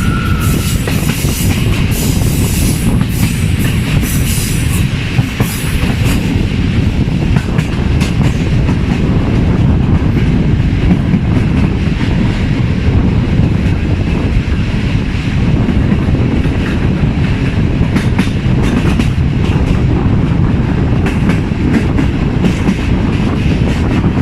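Passenger train running at speed: a steady low rolling rumble with clusters of clickety-clack from the wheels over rail joints, near the start and again in the last third. A high steady tone, a whistle or wheel squeal, stops within the first second.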